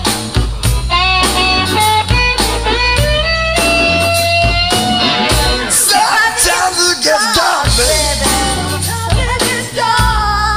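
Music: an instrumental break in a song's backing track, a lead melody of held and bending notes over a stepping bass line.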